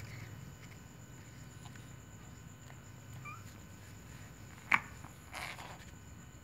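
Cats: one brief, sharp cat cry about three-quarters of the way through, followed at once by a short breathy noise, with two faint short chirps a little earlier.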